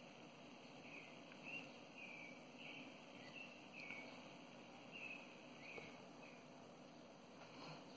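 Faint, short, high chirping calls from a small animal, one every half second or so, over a low steady background hum.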